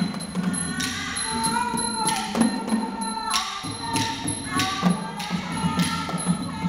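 Thai lakhon chatri ensemble music: steady drum beats and regular strokes of small hand cymbals that ring on, with a wavering melody line above them.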